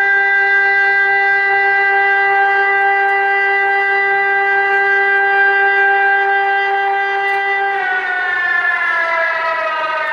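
ELMIK NERO 600 electronic siren sounding one steady, loud tone, the continuous signal of the Czech siren test; about eight seconds in the pitch starts to slide steadily down as the tone winds down at the end of the test signal.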